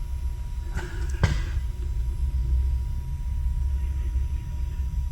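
Steady low rumble with two sharp knocks about a second in, the second the louder.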